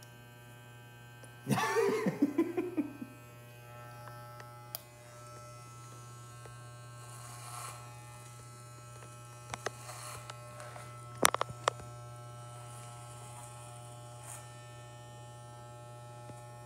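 Corded electric hair clippers running with a steady buzz as they cut a man's short hair. A short burst of voice comes about a second and a half in, and a few sharp clicks come near the middle, the loudest about eleven seconds in.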